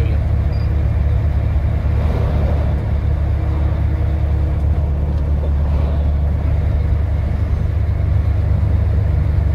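Steady low engine rumble and road noise of a heavy vehicle moving slowly, heard from inside its cab.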